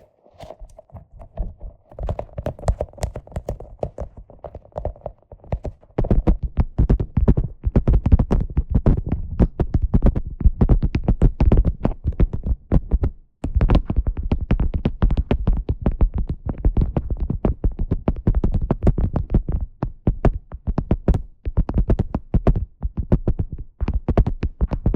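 Close-miked handling of a squishy grape ball toy, soft squishing and clicking, gives way about six seconds in to a beeswax food wrap being crinkled and crumpled. The wrap makes a dense, louder crackle, with a brief pause about halfway through.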